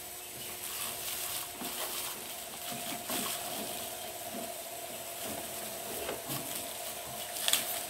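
Plastic bag wrapping a boxed speaker crinkling and rustling as hands grip it and pull it up out of a cardboard box, in irregular crackles, over a faint steady hum.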